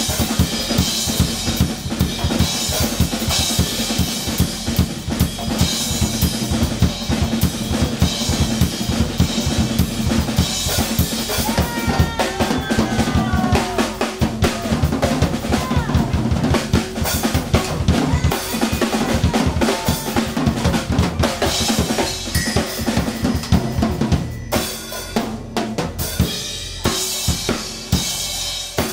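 Live rock band playing an instrumental passage: a drum kit drives a busy groove of bass drum, snare and cymbals over electric bass. A few sliding lead notes come in around the middle, and the playing turns sparser and choppier near the end.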